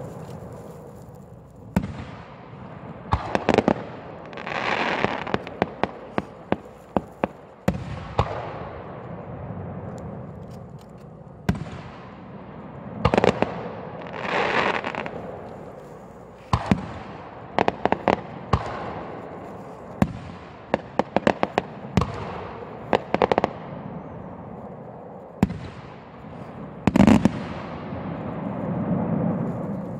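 Aerial firework shells bursting overhead: sharp booms, often several in quick succession, each trailing off into a rolling echo, with a couple of longer hissing swells between them.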